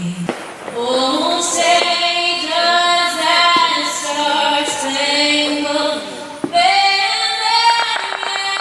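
Background music: a song with a female voice singing a sustained melody, breaking off briefly about six and a half seconds in before carrying on.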